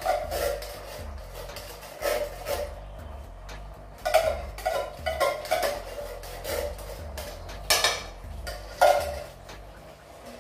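Tin can of tomato puree clinking and knocking against an electric skillet as it is emptied: a string of irregular metallic knocks, the loudest two near the end.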